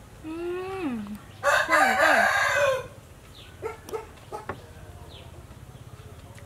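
A rooster crows once, for about two and a half seconds, ending in a loud, harsh note. A few light clinks of a spoon against a plate follow.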